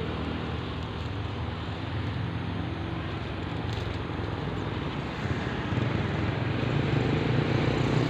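An engine running steadily with a low hum, growing louder about five and a half seconds in.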